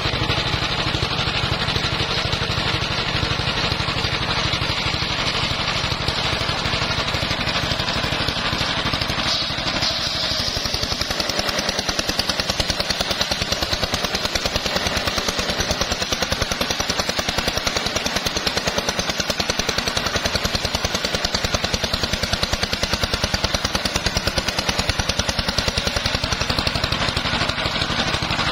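Engine-driven portable circular-saw sawmill running steadily as its blade cuts lengthwise through a log. The engine's fast, even pulsing sits under the noise of the blade in the wood.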